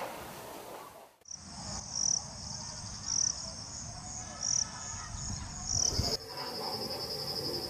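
Crickets trilling in a steady high pitch, with a louder pulse about once a second. About six seconds in, a faster-pulsing trill takes over.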